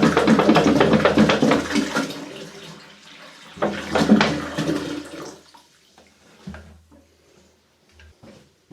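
Toilet flushing: water rushes into the pan and dies away, with a second gush about three and a half seconds in. The flush tests a toilet pan connector that has just been re-secured after leaking.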